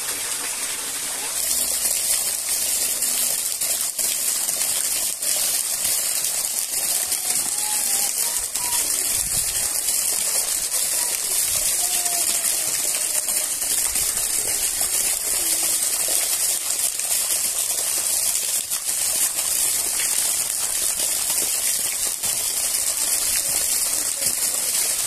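Steady rushing noise of water, stepping up in level about a second and a half in and then holding even, with a few faint clicks.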